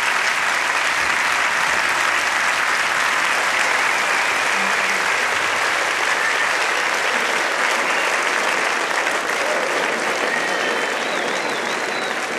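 Audience applauding steadily, fading slowly near the end.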